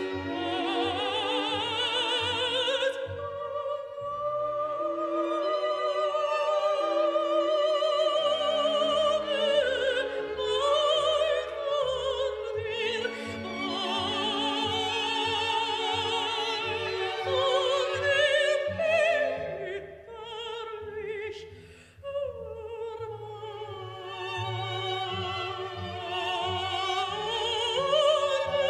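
Operatic singing with orchestral accompaniment: a classically trained voice holding long notes with strong vibrato over sustained strings and bass. The music dips briefly about two thirds of the way through.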